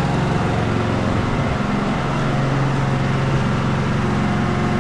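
Predator inverter generator's engine running steadily on natural gas under a decibel-meter test, loud close up at around 83 dB.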